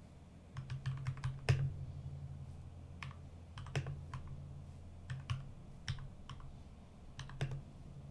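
Computer keyboard typing: keystrokes clicking in short, uneven runs as a terminal command is typed.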